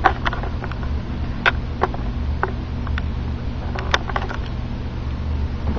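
A cardboard retail box being handled and turned over, giving a few scattered light taps and clicks, over a steady low hum.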